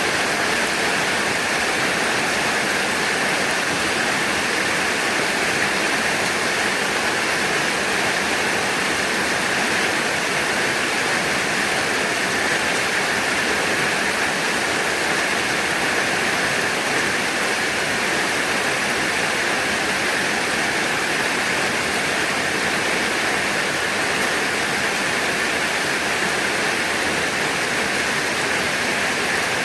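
Heavy rain falling in a steady, unbroken downpour, with no thunder.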